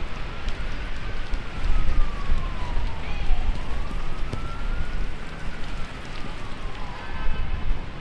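An emergency vehicle's wailing siren, slowly rising and falling twice, over the steady noise of heavy rain and wind on the street.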